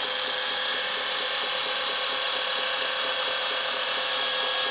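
Electric hydraulic pump of a LESU 1/16 Aoue R100E RC mining dump truck whining steadily, with several fixed high tones, as the hydraulic cylinders lift the dump bed.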